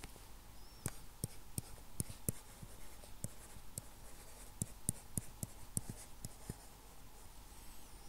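Stylus tapping and scratching on a writing tablet as someone writes by hand: irregular sharp clicks, several a second, thinning out near the end.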